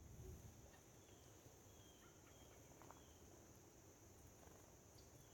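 Near silence: faint outdoor ambience with a steady high hiss and a few faint, short bird chirps scattered through.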